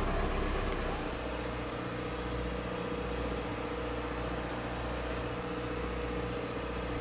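Boat's Cummins diesel engine running steadily under way: an even low drone with a steady hiss of wind and water over it.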